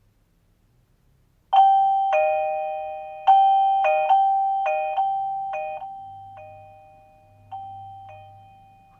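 Guudgo GD-MD01 wireless doorbell chime playing one of its melodies: about a dozen electronic bell-like notes, mostly alternating between two pitches, each ringing on and fading. It starts about a second and a half in, and the tune dies away near the end.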